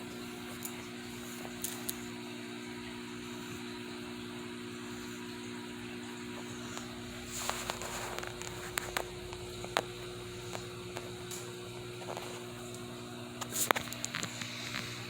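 Steady electrical hum, like a fan or appliance, with a few sharp clicks and taps scattered through it, the loudest near the end.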